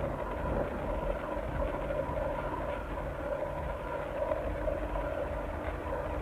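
Live electronic drone music: a dense, steady rumble with a deep low end and two held tones in the middle range.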